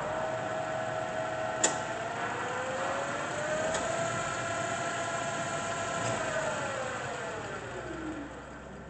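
Hardinge HLVH toolroom lathe running under power, its spindle drive whining with a pitch that rises slightly a couple of seconds in, then drops and fades as the spindle slows over the last few seconds. A sharp click sounds about one and a half seconds in.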